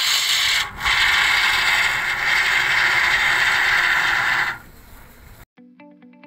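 Aerosol can of polyurethane expanding foam spraying through its straw nozzle, a loud steady hiss that breaks off for a moment about a second in, then runs for about four more seconds before stopping. Guitar music comes in near the end.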